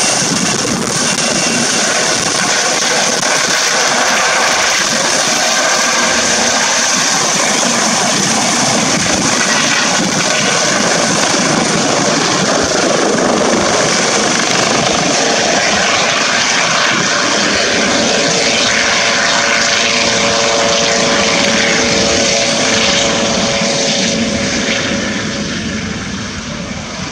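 Eurocopter EC135 T2+ twin-turbine helicopter lifting off and climbing away: a steady, loud rush of rotor and turbine noise, with a humming tone coming in past the midpoint. The sound fades over the last few seconds as it departs.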